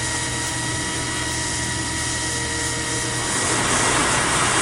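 Small quadcopter drone (DJI Mavic Mini) hovering, its propellers giving a steady whine. About three seconds in, a hiss of a lit firework grows over it.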